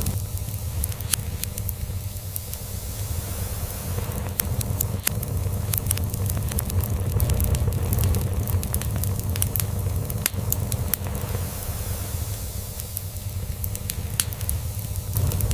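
Log fire crackling, with sharp pops at irregular moments, over a steady low purr from a cat.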